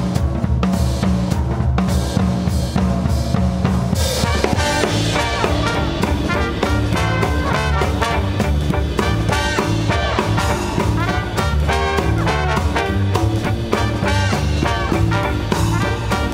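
Swing band music with a steady drum-kit beat. The drums and low notes lead at first, and the horns and the full band come in about four seconds in.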